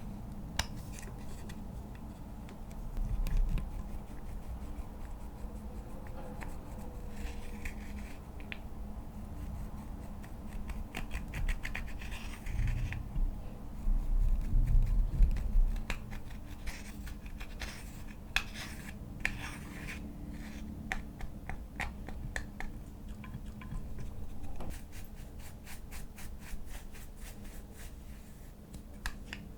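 Slime being worked by hand close to the microphone: scratchy rubbing and many small sticky clicks and crackles. There are a few low thuds about 3 seconds in and again around 15 seconds, and a fast run of clicks near the end.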